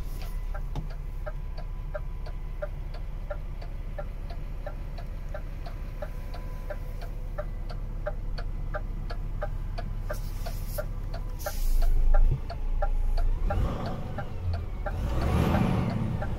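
DAF XF 480's PACCAR MX-13 six-cylinder diesel idling, heard from inside the cab, with an even ticking of about three a second over it. A loud thud about twelve seconds in, and louder noise near the end.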